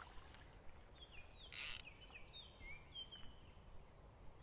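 Small birds calling with short slurred whistles, several in a row, over a faint low steady rush from the creek. About one and a half seconds in, a brief loud hiss cuts across them.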